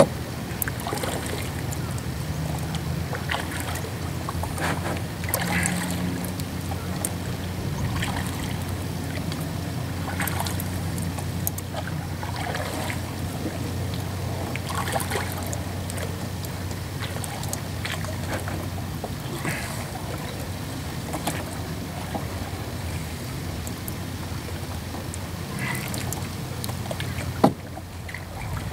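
Double-bladed paddle dipping and pulling through water beside a plastic canoe, a short splash about every two seconds, over a steady low rumble. A sharp knock near the end.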